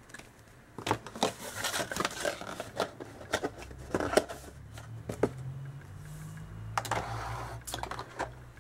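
Hands handling unboxing packaging: a clear plastic blister tray and a paper instruction booklet crackling, clicking and rustling in irregular bursts, with a rustle near the end.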